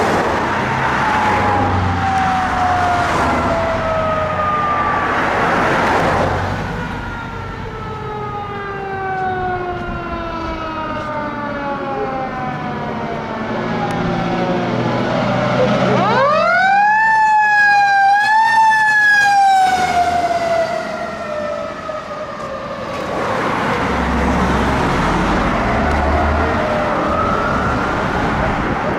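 Fire truck siren wailing in long falling sweeps. About halfway through it jumps sharply up in pitch and wavers high for a few seconds, then falls back into sweeps, over the sound of traffic.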